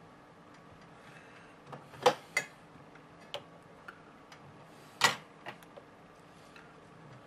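Sharp clicks and ticks of metal tweezers tapping against a phone circuit board: two loud clicks about two and five seconds in, each followed by a few fainter ticks.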